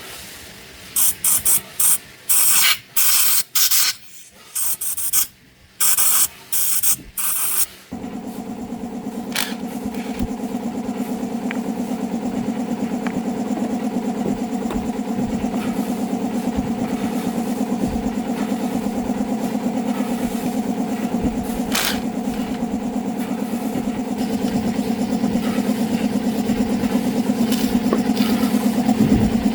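About a dozen short hissing spray blasts in quick succession, like a compressed-air or aerosol nozzle squeezed on and off. Then, from about eight seconds in, a steady motor starts running with a low, even hum.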